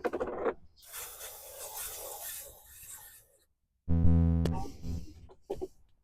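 Hand work on a brake hub: metal and parts scraping and rubbing, then a loud low creak about four seconds in that fades over about a second.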